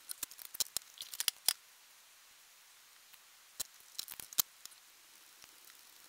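An M10 tap threading a hole in an aluminium workpiece, held in a milling machine spindle: sharp, irregular clicks and ticks in two short clusters, one in the first second and a half and another about four seconds in.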